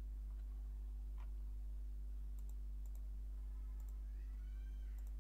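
Computer mouse clicks: several faint quick double ticks, each a press and release, over a steady low electrical hum.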